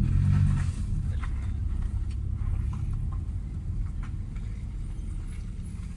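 Proton Waja engine, remapped for pops and bangs, settling from a rev back to a steady idle, with scattered light pops and crackles from the exhaust.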